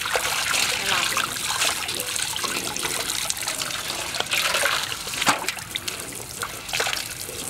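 Water from a garden hose pouring and splashing into a large metal basin as a whole stingray is rinsed and rubbed by hand. Irregular splashes and sloshing come as the fish is lifted and turned in the water.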